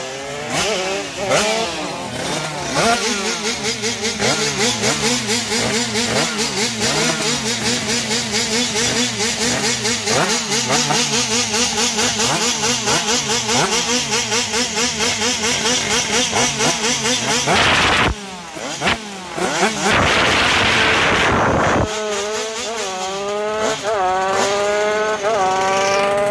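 A small two-stroke moped engine revved hard at the start line in fast, regular blips, about two to three a second. Near the end it pulls away, its pitch climbing in several steps as it accelerates.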